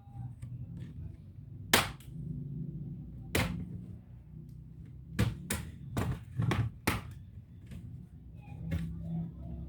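Sharp clicks and knocks from a laptop being taken apart by hand, about eight in all, over a low steady hum.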